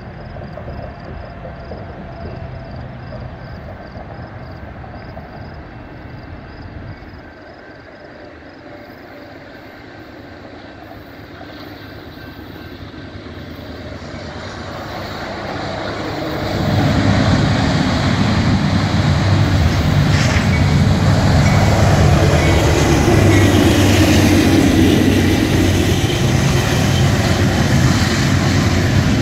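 BNSF diesel freight train approaching, faint at first and growing louder, then passing close from about halfway through with a steady low engine drone, followed by freight cars rolling by.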